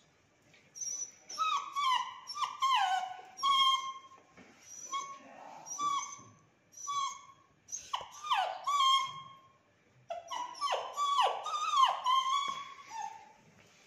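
Beagle puppy whining and whimpering in a string of short, high cries that slide down in pitch, the distress whines of a puppy stuck on the stairs and unable to get down. The cries come in clusters, with brief pauses near the start, about eight seconds in and about ten seconds in.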